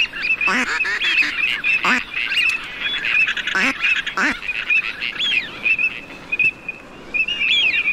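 Ducks calling: a dense run of short, high chirping calls, broken by a few lower calls that fall in pitch. The calls thin out about six seconds in.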